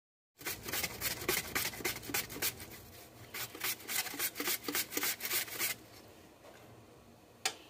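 Onion being sliced on the slicing blade of a metal box grater: quick, repeated scraping strokes, several a second, that stop about six seconds in. A single sharp click follows near the end.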